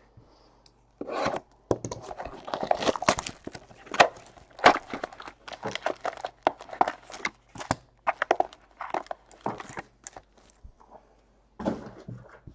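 Clear plastic shrink wrap being torn and crinkled off a sealed baseball card box, giving a dense run of sharp crackles. The crackles pause briefly, then come again in a short burst near the end.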